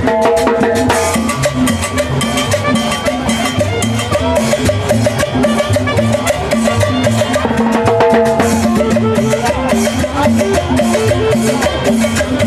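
Live Latin dance music from a street band: conga and timbales drumming a steady beat over a bass line, with some held chord notes.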